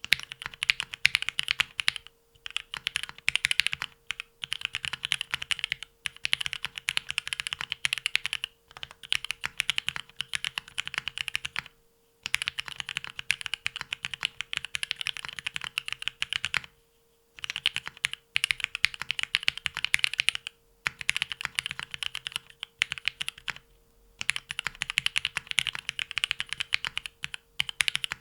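Fast typing on a Leaf65 mechanical keyboard with lubed Marshmallow linear switches and Extended 2048 keycaps. Keystrokes click in rapid runs of a few seconds each, with brief pauses between the runs.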